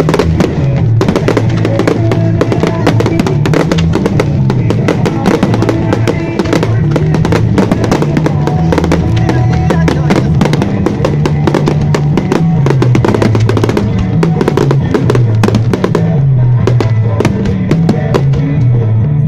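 Loud music with a bass line and drums playing for a fireworks show, mixed with many sharp bangs and crackles of aerial fireworks bursting throughout.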